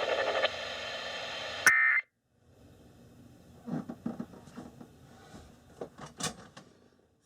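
NOAA Weather Radio broadcast trailing off into hiss, then a click and a short high beep before the audio cuts out about two seconds in. Faint clicks and handling noises follow.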